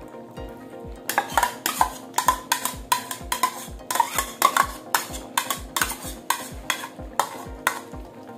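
Metal spatula scraping the last of the ketchup out of a plastic bowl over a wok: a run of quick scrapes and knocks, roughly two a second, starting about a second in. Background music with a steady beat plays underneath.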